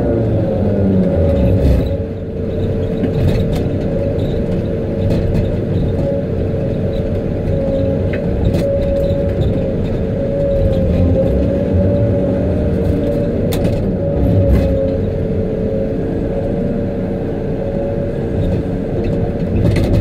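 Tigercat knuckleboom log loader running steadily under load as it swings and works its grapple, with a constant whine over a low rumble. A few sharp knocks come now and then as logs are handled.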